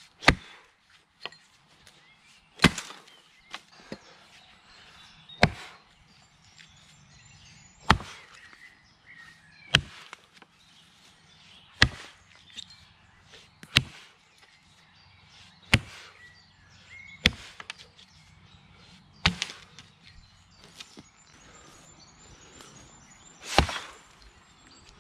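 Heavy 6-pound Elwell Yankee-pattern axe chopping into a fallen log: about eleven sharp strikes, roughly one every two seconds, with a longer pause before the last one.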